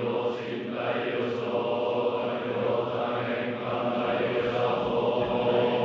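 A group of Soto Zen monks chanting a sutra together in a steady, low monotone, with many male voices held on nearly one pitch.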